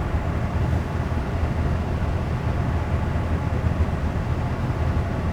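A 2013 Ford F-150's V6 engine idling, a steady low hum with no changes in speed.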